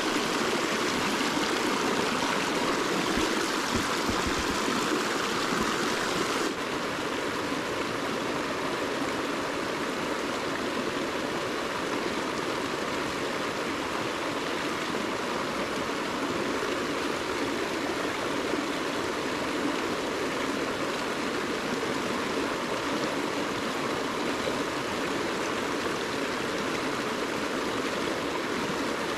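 Mountain stream rushing steadily, a continuous churning of water; the sound drops abruptly in level about six seconds in.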